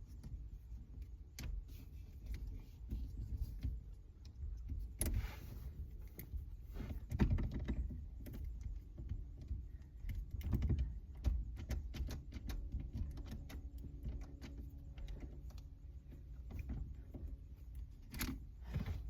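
Scattered clicks, taps and small metallic rattles of hand tools and parts being worked in a car's steering column, with a few sharper knocks spread through.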